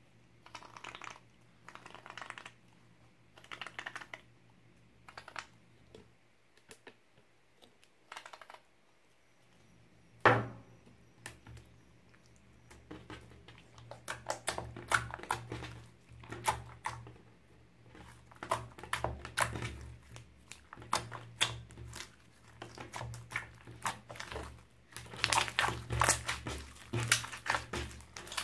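An aerosol foam can sprays several short hisses, about one every second and a half. About ten seconds in comes one sharp knock. After that, slime is pressed and kneaded by hand, giving runs of many small sticky clicks that grow thickest near the end.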